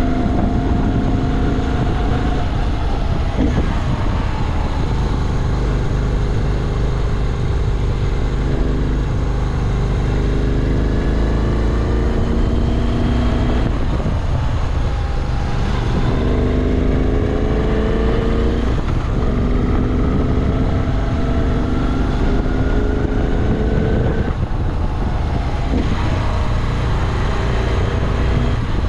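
Moto Guzzi V7 Classic's air-cooled transverse V-twin running under way, its pitch climbing in long pulls and dropping back three times as the bike accelerates and shifts.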